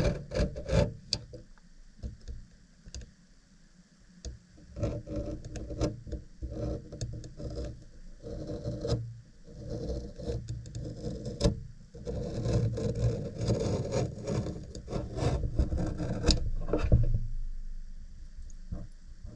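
Irregular rubbing and scraping with many short clicks and knocks, as of objects being handled close to the microphone; busiest in the second half.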